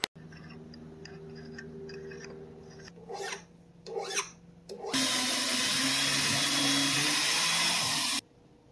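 Metal shop work on silver stock: a few short scraping strokes, then a loud steady rushing tool noise for about three seconds that cuts off abruptly.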